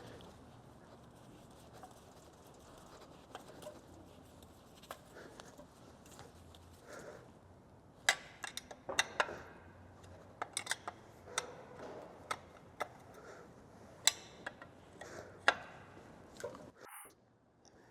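Scattered sharp clicks and light knocks from metal parts and tools being handled while a Stihl 500i chainsaw is reassembled. The sounds are sparse at first and come thick and fast in the second half.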